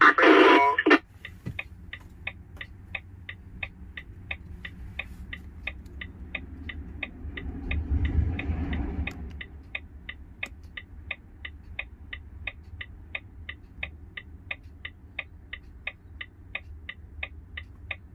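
Steady, even ticking, about three clicks a second, in a Volvo truck's cab, with a short loud burst of noise in the first second and a low rumble swelling and fading around eight seconds in.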